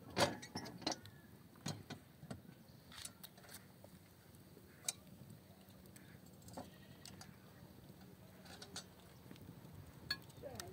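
Faint, scattered metallic clicks and clinks of a steel hook knocking against an iron saj griddle over a wood fire, the sharpest cluster in the first second.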